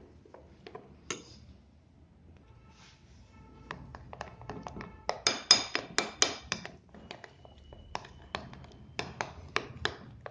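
A metal spoon clicking and scraping against a white bowl as gram flour and water are beaten into batter: scattered taps at first, then quick runs of clicks from about five seconds in, with a faint ringing from the bowl.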